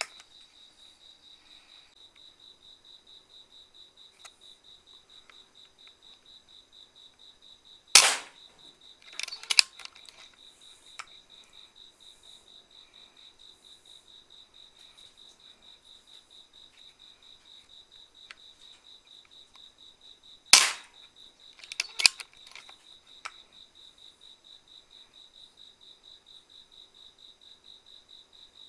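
Two sharp shots from a PCP air rifle, one about a third of the way in and one about two-thirds through. Each is followed about a second later by a quick cluster of softer clicks, over a steady, rhythmic high-pitched pulsing in the background.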